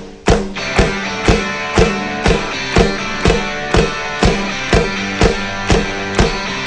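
Rock background music: drums keeping a steady beat of about two hits a second under guitar.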